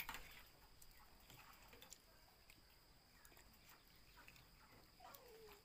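Near silence while people eat at a table, with faint scattered clicks of spoons against plates and one sharp click right at the start.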